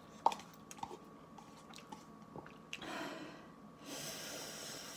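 Chopsticks clicking against a ramen cup with chewing, then a long hissing breath through the mouth near the end, from a mouth burning with chili heat.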